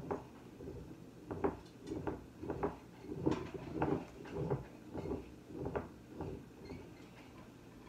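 Kitchen clatter at the stove: a run of light knocks and taps from utensils and cookware, about two a second, dying away near the end.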